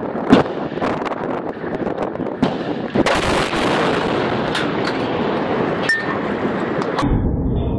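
Scattered sharp gunshots crack over a steady wind rumble on the microphone, with a louder rushing blast about three seconds in.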